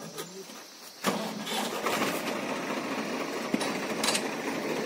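Tractor engine starting about a second in, then running steadily.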